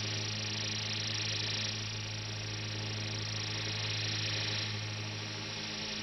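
Electronic sci-fi sound effect: a steady low hum with a hissing upper layer that shifts in level a couple of times.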